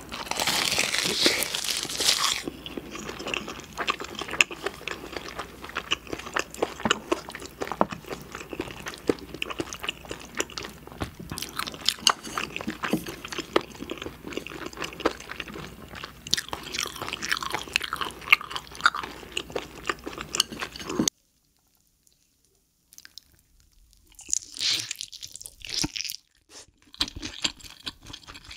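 Close-miked chewing of crunchy food, a dense run of crisp crunches and wet mouth sounds. It cuts off abruptly about three-quarters of the way through, and after a short silence a few more crunchy, wet chewing sounds follow.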